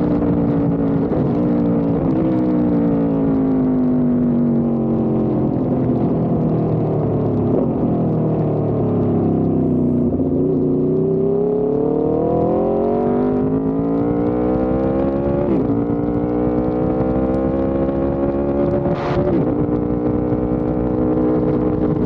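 Motorcycle engine through an SC Project exhaust, heard close to the exhaust while riding. The engine note slowly drops for about ten seconds, then climbs again. A few brief dips in pitch come and go.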